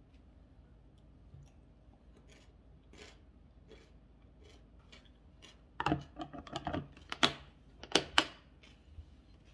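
Plastic lid being fitted and snapped shut on a glass food-storage container: about six seconds in comes a flurry of clicks and clatter, ending in a few sharp snaps as the latches close. Before that, only faint light taps, like a fork on the bowl.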